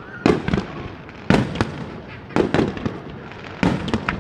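Aerial fireworks shells bursting: four pairs of sharp bangs, about a second apart.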